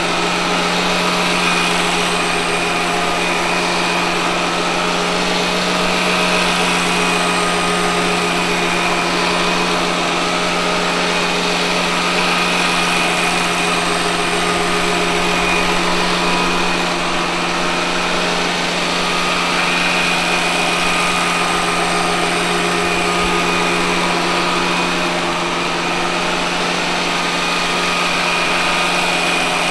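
Robot vacuum cleaner running steadily, its motors giving a constant low hum with a fixed higher whine on top, while it spins around in circles during spot cleaning.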